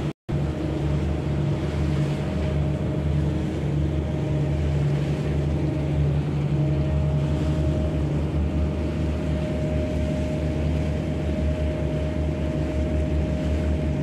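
A car ferry's engine droning steadily while underway, a low hum with a thin steady tone above it, over the rush of water and wind.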